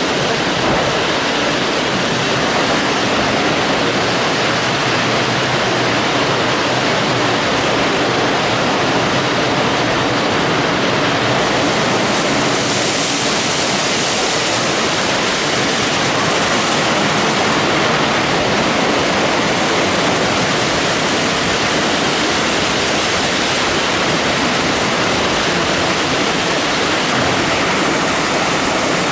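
WashTec EasyWash gantry car wash at work on a car: water spraying and the rotating brushes washing it, a steady rushing hiss.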